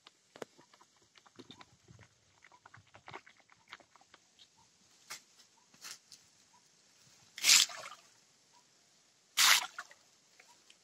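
Light clicks and scrapes of a stick working in a jar of lime powder, then two short splashes about two seconds apart as the powder is flung into a shallow stream.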